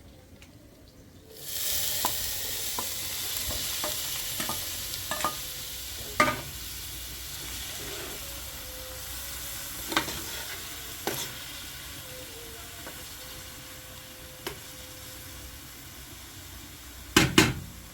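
Food sizzling in a hot pan, starting suddenly about a second and a half in and slowly dying down, with scattered knocks of a utensil against the pan and a loud double knock near the end.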